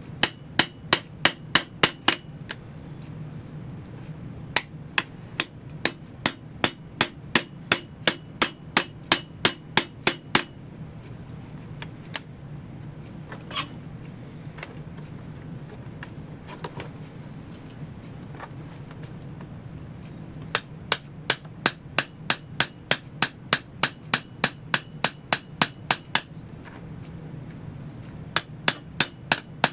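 A hammer tapping rapidly on metal, about two to three strikes a second, each strike ringing brightly. It comes in long runs of quick taps with pauses between: three runs and the start of a fourth, with a few lone knocks in the gaps.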